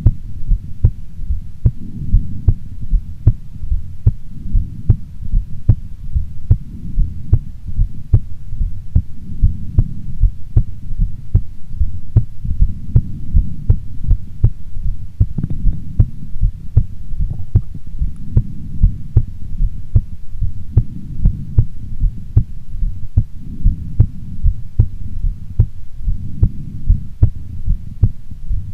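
A woman's heartbeat, heard close up as a steady, even run of low thuds over a low rumbling hum.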